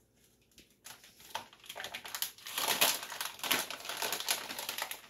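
Crinkly packaging rustling and crackling in the hands as grow sponges are taken out one at a time, starting about a second in and busiest in the second half.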